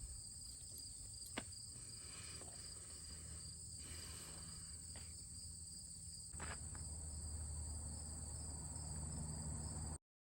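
Faint, steady, high-pitched insect chorus with a few soft clicks. It cuts off abruptly near the end.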